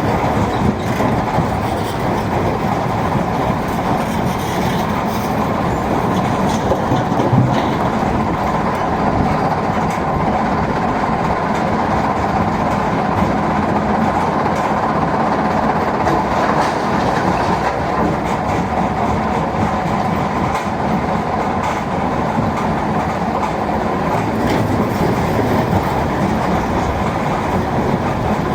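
Mobile stone crusher and Volvo excavator working: a loud, steady mechanical din with a dense clatter of small knocks running through it, the sound of stones being crushed.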